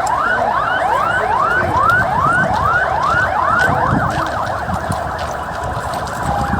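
Emergency vehicle siren yelping: a quick rising whoop repeated about three times a second, with a second siren overlapping at first. It fades away after about four seconds.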